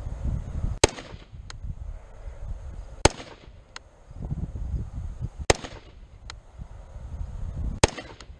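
Springfield Saint Edge AR-15 rifle fired four single shots, evenly spaced a little over two seconds apart. A fainter sharp crack follows each shot about two-thirds of a second later.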